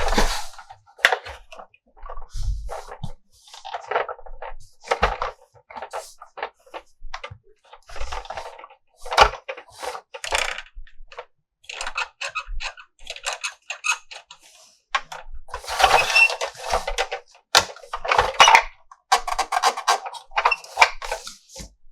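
Toy unboxing: plastic packaging and toy parts handled, making a run of irregular clicks, taps and crinkles, with a longer crinkling stretch a little past the middle.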